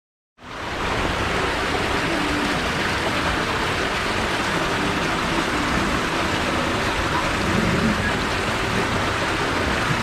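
Steady rushing of water pouring into the entrance of a tube body water slide, starting about half a second in.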